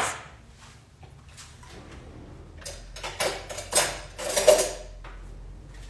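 Dishes and containers being handled on a kitchen counter: a quiet stretch, then a cluster of knocks and scrapes from about halfway through, the loudest a little before the end.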